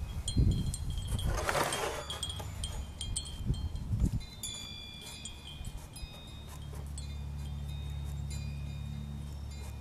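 Wind chimes ringing, several metal tones overlapping and fading. There are a few low thumps in the first half, and a steady low hum comes in about two-thirds of the way through.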